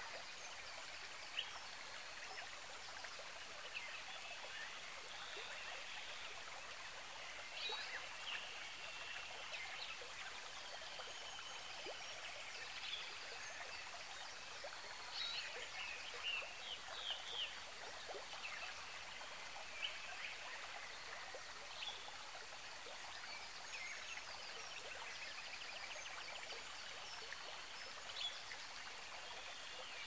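Steady hiss of running water, with short high chirps scattered through it.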